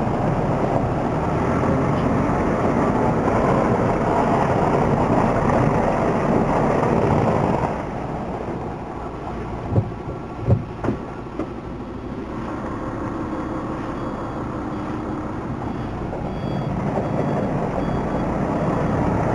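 Mercedes-Benz Actros 3341 truck engine heard from inside the cab, working under load over rough off-road ground. It eases off about eight seconds in, a few sharp knocks come a couple of seconds later, and it builds again near the end.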